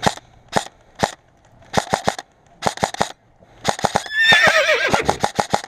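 Airsoft gun firing: three single shots about half a second apart, then rapid groups of three shots. Over the last second and a half a high-pitched, wavering shout rises above the shots, which keep firing.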